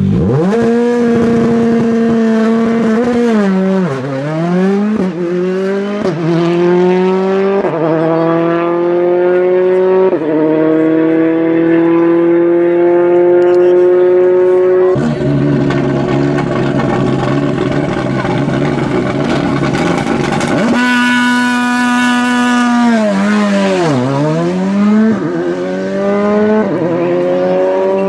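Rally2 cars' 1.6-litre turbocharged four-cylinder engines at a standing start, the first a Citroën C3 Rally2: revs held steady at the line, a sharp dip as the car launches, then rising pitch broken by quick upshifts as it accelerates away. Between about 15 and 21 seconds in, a rougher, steadier engine note runs, and then a second launch with the same held revs, dip and run of upshifts starts about 21 seconds in.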